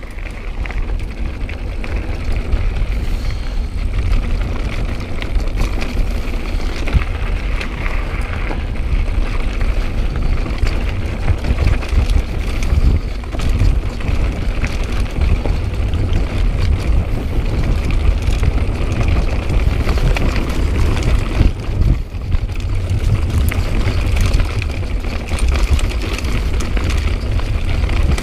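Wind buffeting an action camera's microphone as a mountain bike rides over a rough stony track, with the tyres crunching on gravel and the bike rattling over stones.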